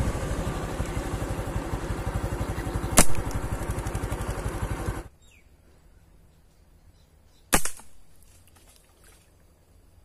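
A loud, steady pulsing noise cuts off abruptly about halfway through. A couple of seconds later comes a single sharp snap of a hunting slingshot being shot.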